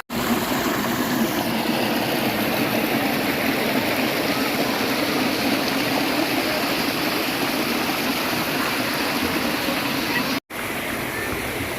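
Stream water rushing steadily, with a momentary break in the sound about ten and a half seconds in.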